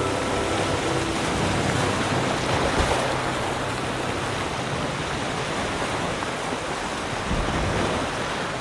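Ocean surf washing in a steady rushing hiss, swelling about two to three seconds in and then slowly easing.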